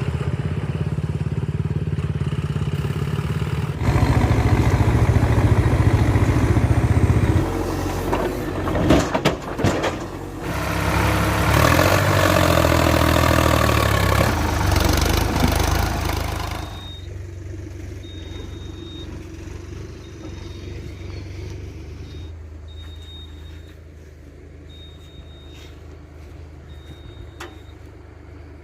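Diesel engines of a backhoe loader and a tractor working, revving hard in stretches, with a few sharp knocks partway through. The engine then settles to a quieter steady run while a reversing alarm beeps at an even pace.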